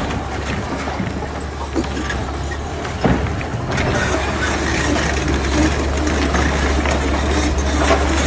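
A heavy engine running with a steady low rumble, with a single sharp knock about three seconds in.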